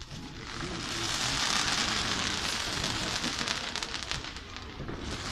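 Fireworks crackling: a dense, continuous stream of tiny pops and fizzing, like crackling stars. It swells about a second in and eases off briefly near the end.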